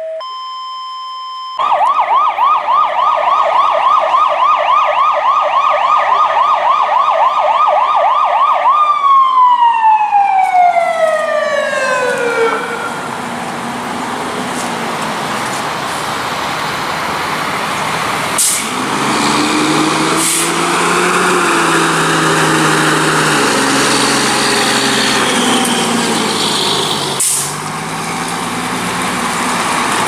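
A fire department vehicle's electronic siren: a steady tone, then a fast yelp for about seven seconds, then a wail winding down in pitch until it stops. After that a heavy vehicle engine runs, rising and falling in pitch, with three short sharp hisses.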